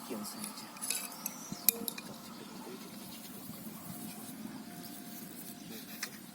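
A few light clicks and clinks of gear being handled, sharpest about a second in and again shortly after, then a faint steady background.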